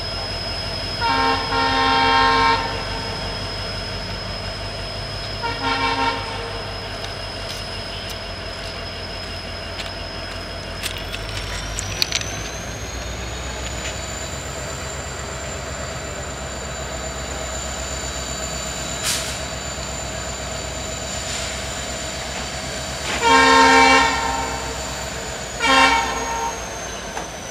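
Twin ALCO WDG3A diesel locomotives approaching under power. The horn sounds a long blast and then a short one, twice: once near the start and again near the end. Under it the engines run steadily, and a high turbocharger whine rises in pitch about eleven seconds in.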